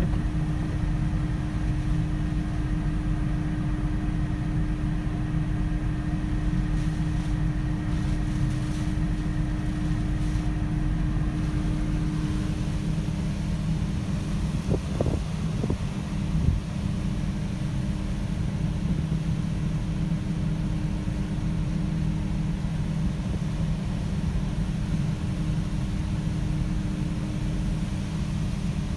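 Steady low rumble of strong wind and heavy surf under a steady hum that shifts lower about twelve seconds in. A few brief thumps come about halfway through.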